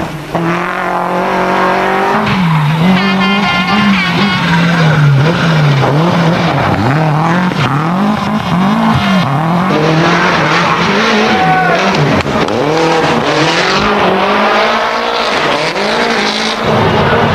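Toyota Celica GT-Four Group A rally car's turbocharged four-cylinder engine revving hard. The revs rise and fall again and again as it is driven flat out through bends, with the tyres skidding on the loose stage surface.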